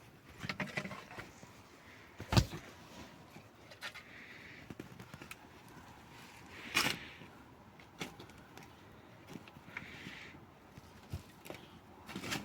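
Scattered knocks and thumps from hand work, with one sharp loud knock about two seconds in and another strong one near the middle.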